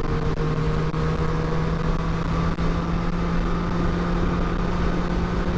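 Sport motorcycle engine running at a steady pitch while riding, with wind rushing over the helmet microphone.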